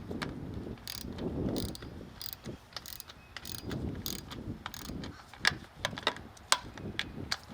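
Hand ratchet clicking in irregular runs as it is swung back and forth on an 8mm socket, working a bolt on an engine, with a few sharper clicks near the end.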